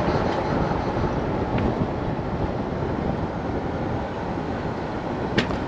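Steady road and engine noise heard from inside the cab of a moving Ford Ranger pickup towing a caravan. Two sharp clicks come near the end.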